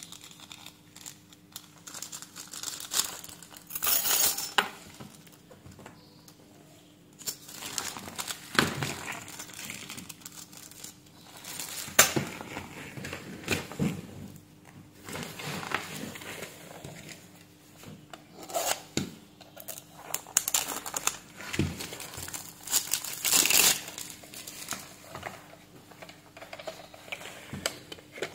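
Clear plastic wrapping crinkling and rustling in irregular bursts as it is handled and pulled off a handheld multimeter, with a few sharp clicks and knocks of hard plastic.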